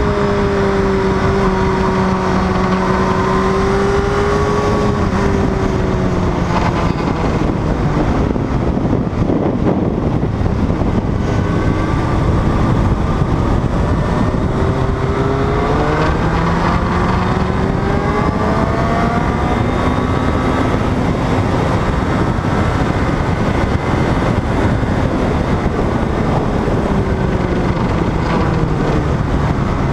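Motorcycle engine at speed on a race track, its revs falling under braking, climbing again under acceleration midway, then falling once more. Heavy wind rush runs underneath.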